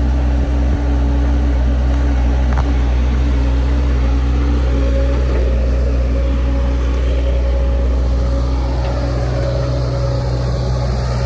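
Heavy machine's diesel engine running steadily at an even speed, with a faint higher tone coming in about halfway through.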